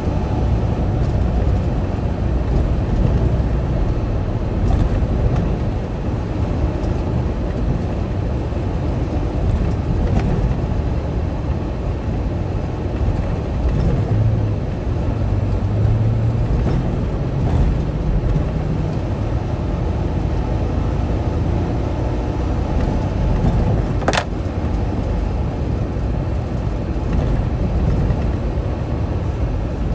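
Semi truck engine running steadily, a low even drone, with a single sharp click about four-fifths of the way through.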